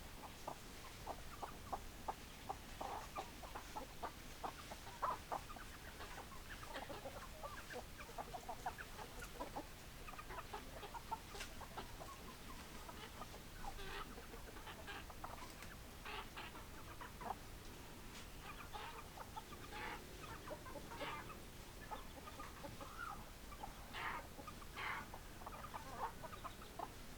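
Hens clucking, many short clucks overlapping at an irregular pace.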